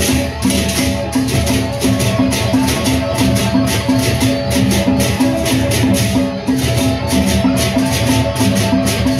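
Sasak gendang beleq ensemble playing: large double-headed barrel drums beat a steady rhythm under rapid, continuous clashing of ceng-ceng hand cymbals, with repeating pitched metallic notes in the middle.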